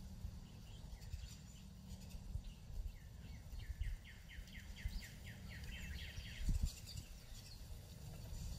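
A songbird sings a rapid trill of evenly spaced, falling notes, about five a second, starting about three seconds in and lasting about three seconds. Other faint chirps come and go, over a low rumble.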